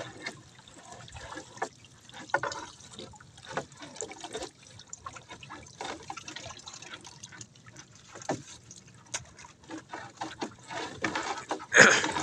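Seawater splashing and dripping off collapsible net traps as they are hauled out of the sea one after another, with one louder splash near the end.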